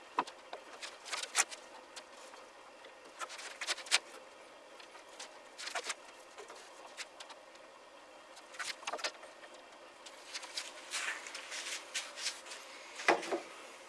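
Scattered light clicks, knocks and rustles of hands handling wooden pieces and small hardware, with a sharper knock about four seconds in and another near the end.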